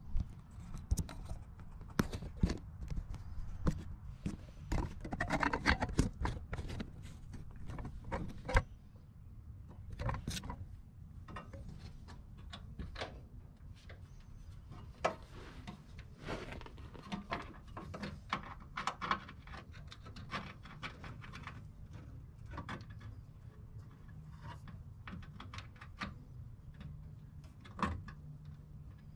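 Irregular clicks, taps and light metallic knocks from hands working tools and fittings on a Volkswagen Beetle's clutch cable at the transaxle, with a short burst of rattling about five seconds in, over a low steady hum.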